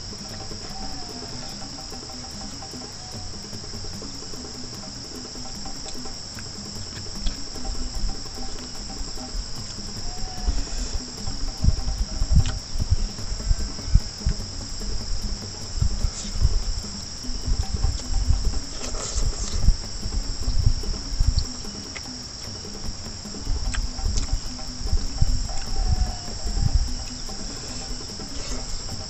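Insects shrilling in one steady, high, unbroken drone. Over it, from about a quarter of the way in, come close, irregular eating sounds of a man chewing a mouthful of rice and snails taken by hand.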